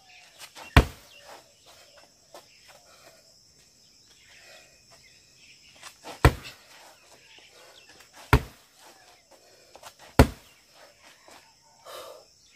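Roundhouse kicks hitting a padded kick target strapped to a tree trunk: four sharp thuds, one about a second in, then three more about two seconds apart. Softer foot shuffles fall between them, over a steady high chirring of insects.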